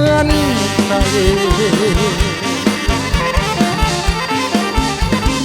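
Live Isan folk-pop band music: an instrumental passage with a wavering lead melody over a steady kick drum beat.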